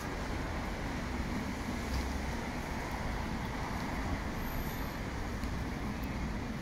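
Steady city street traffic noise from passing vehicles.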